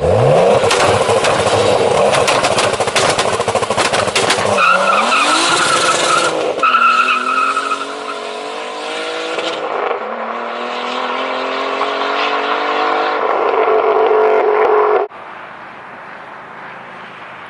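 Modified 402 hp BMW E46 making a hard launch from a standstill. A quick rising rev leads into about six seconds of loud, noisy running with rapid exhaust crackles, then the engine climbs in pitch through several rising sweeps. The sound cuts off suddenly about 15 seconds in, leaving a quieter steady noise.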